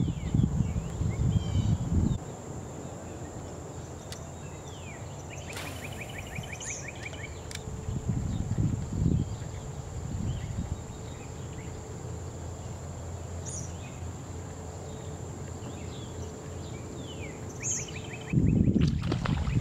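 Wind buffeting the microphone in gusts, strong in the first two seconds and again near the end, weaker in between. Over it, birds call with short chirps and a brief fast trill.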